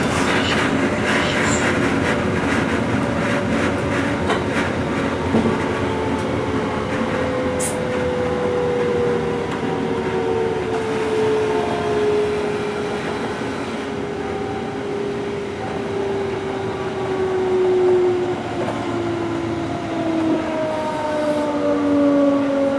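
DB class 425 electric multiple unit heard from the driver's cab, its traction motors whining with a pitch that falls steadily from about a third of the way in as the train slows for a station stop. Near the start the wheels click over rail joints.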